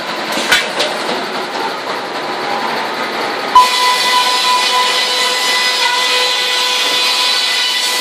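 Sawmill breast bench circular saw cutting a board: about three and a half seconds in, a sudden knock, then a steady whine with hiss as the blade rips through the timber. Before that, mill machinery runs with a few clanks.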